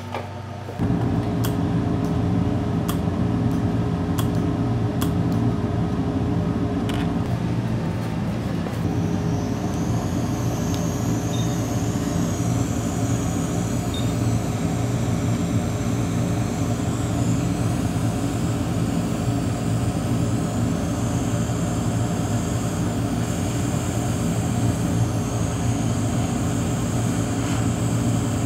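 Hot-air rework station blowing steadily over the flash drive's board to desolder its NAND memory chip, switching on about a second in, with a higher hiss joining after about nine seconds. A few light clicks in the first several seconds.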